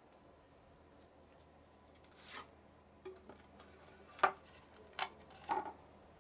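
Objects being handled: a short scraping rub about two seconds in, then several separate sharp clicks and knocks, the loudest just past four seconds.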